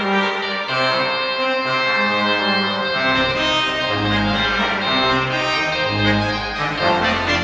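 Church organ played in sustained, reedy chords that change every half second or so, with deep bass notes coming in about three seconds in.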